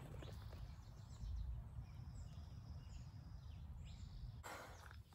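Faint outdoor ambience: a steady low rumble with a few faint bird chirps, and a brief rustle about four and a half seconds in.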